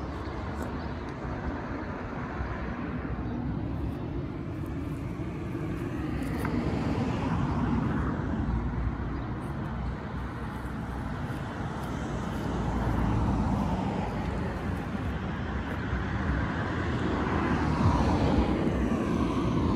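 Road traffic noise: a steady rumble of motor vehicles that swells and eases a few times. Near the end an engine note starts to rise as a vehicle approaches.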